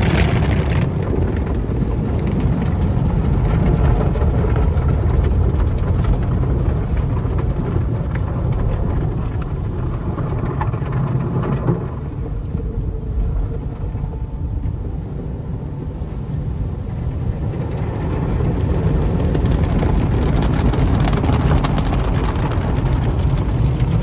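Automatic car wash heard from inside the car cabin: rotating brushes and cloth strips scrubbing over the body and water spraying on the glass, a steady loud rumble with hiss. It eases somewhat about halfway through and grows hissier again for the last few seconds.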